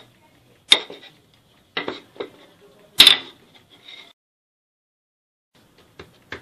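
Wooden rolling pin knocking and clattering on a stone worktop as it is handled and set down: four sharp knocks in the first three seconds, the loudest about three seconds in, then a few fainter clicks near the end.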